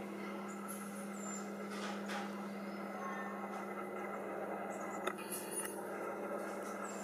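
A steady low hum with faint, scattered high squeaks and a few light clicks, one sharper click about five seconds in.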